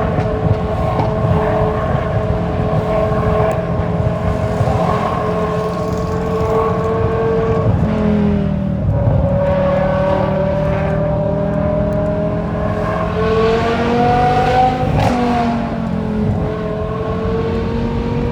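BMW E60 M5's straight-piped 5.0-litre V10 running under way, heard from inside the car. Its exhaust note holds a steady pitch, falls about eight seconds in, climbs again and drops sharply around fifteen seconds in.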